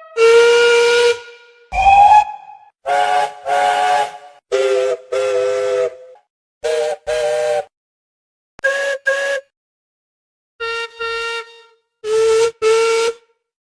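A run of steam locomotive whistle sound effects played one after another: a long chime-like blast with hiss, then a series of mostly double toots, each a chord of several tones, separated by silent gaps.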